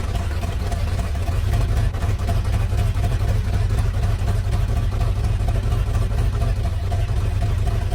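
Old Pontiac Firebird's engine running steadily just after being started, a low-pitched even run with no change in speed.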